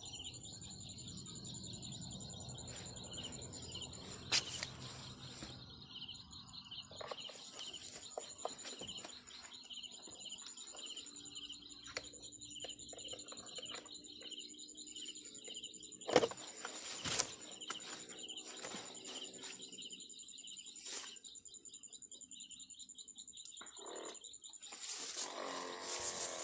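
Birds chirping over a steady, high-pitched trill, with a few short sharp clicks; the trill stops near the end.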